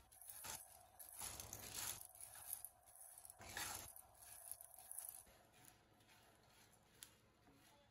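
Faint swishing and rattling of dry soybeans being stirred with a wooden spatula in a frying pan, several strokes in the first five seconds or so, then fading to near quiet.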